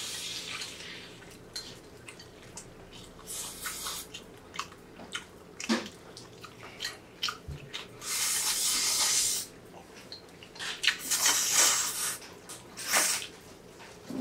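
Close-miked eating of spicy cold bibim-myeon noodles and roast pork belly: wet chewing with small clicks, and noisy slurps, the longest about eight seconds in as a bowl is held to the mouth, with more slurps near the end.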